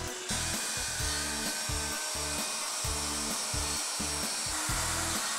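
Bosch plunge router running steadily as its bit hogs out the recess in a walnut and maple tray, a steady hiss reaching into the high pitches, over background music with a steady low beat.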